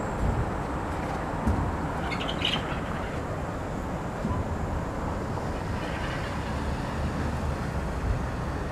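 Distant fireworks: a few dull low booms over a steady low outdoor rumble, with a brief high chirp about two seconds in.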